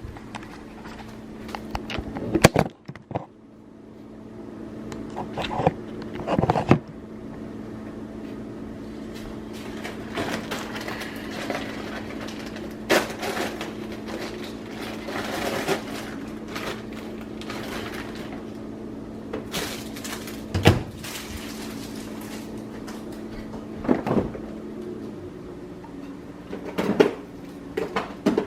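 Whirlpool microwave oven running with a steady hum while popcorn pops inside, the pops sparse and a few seconds apart as popping slows. Near the end the hum stops and a few clicks follow.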